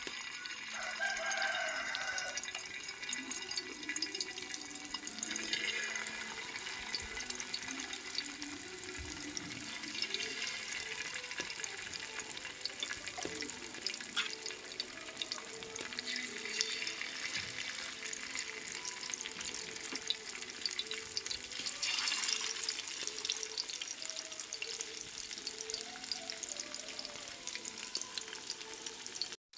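Masala-coated fish pieces sizzling and bubbling as they fry in hot oil in an iron kadai, the sizzle surging louder a few times as more pieces go into the oil.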